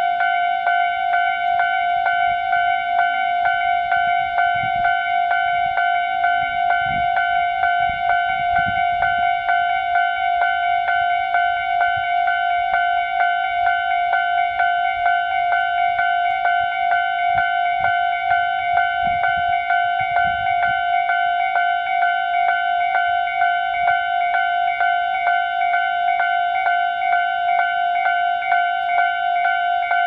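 Japanese railway level-crossing warning bell ringing steadily: a rapid, evenly repeating electronic clang, the signal that the crossing is closed for an approaching train.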